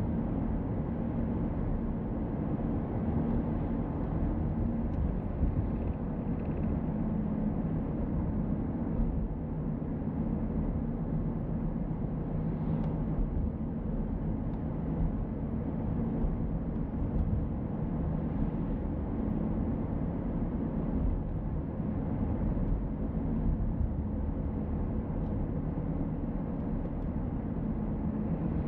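Car driving at steady speed: constant road and engine noise heard from inside the car, with no sudden events.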